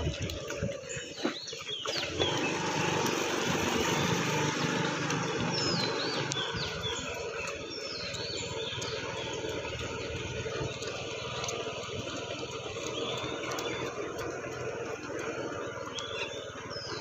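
Steady low running of a slow-moving vehicle engine with road noise, with birds chirping now and then.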